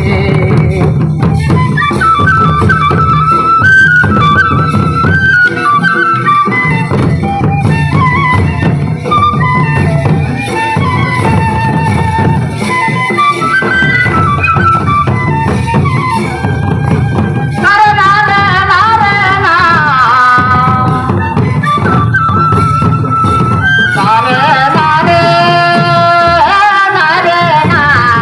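Folk music for a group dance: large drums beating steadily, with a melody and singing over them, the singing strongest in two passages in the second half.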